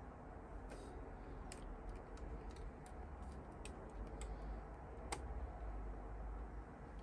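Light, scattered clicks and taps of small plastic model-kit parts being handled and fitted, with one sharper click about five seconds in, over a low steady hum.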